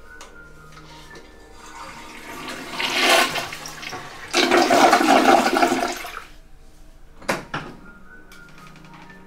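Toilet flushing: the water rushes in, swells, runs loudest for about two seconds in the middle, then drains away. Two sharp clicks follow near the end.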